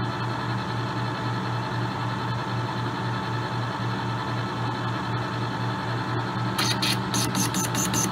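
Manual lathe running with a steady hum. About six and a half seconds in, the carbide-insert tool, fed by hand on the compound set at 45 degrees, engages the inside of the bore to cut a chamfer, and a rapid pulsing cutting noise begins.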